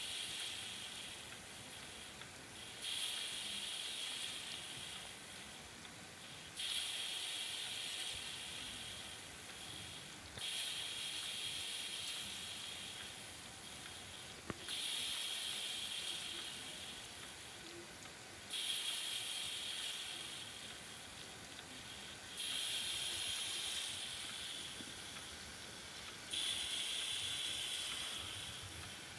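PM Research model steam engine on a slow run, its steam exhaust hissing in regular puffs: each hiss comes in suddenly about every four seconds and tails off over a couple of seconds.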